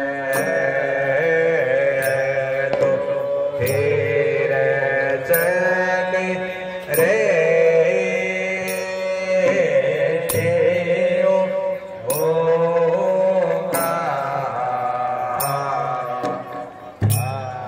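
Indian devotional music in a chant-like style: a melody line over a sustained drone, punctuated by sharp percussion strikes at a slow, even pace.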